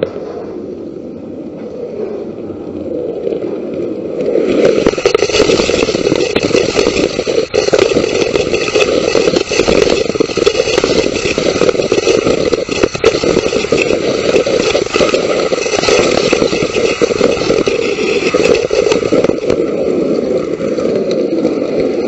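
Model wooden roller coaster train running on its wooden track, its wheels rumbling and clattering, heard from a camera riding the front car. It is quieter for about the first four seconds near the top of the lift, then much louder and steady once the train is running at speed.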